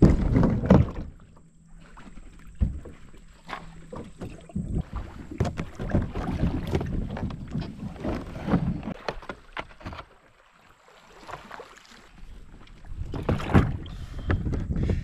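Sit-on-top fishing kayak's hull scraping and bumping over gravel and rock as it is pushed down a launch ramp into the water, then knocks and clunks as someone climbs aboard and pushes off from the shore, with a short lull partway through.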